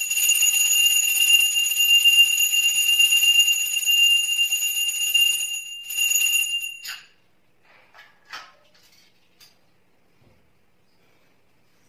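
Puja hand bell rung without a break for nearly six seconds, stopping briefly, then ringing again for about a second before it stops. A few faint knocks follow.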